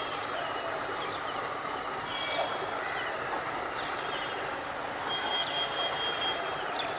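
Steady engine hum of an ALCO WDP3A diesel locomotive standing at a platform, with birds chirping over it. A thin, steady high tone comes in about five seconds in.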